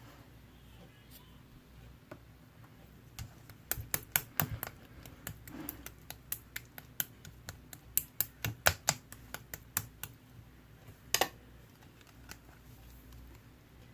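Slime being pressed and squeezed by hand, giving a run of sharp clicking pops from about three to ten seconds in, with one last loud pop near the end.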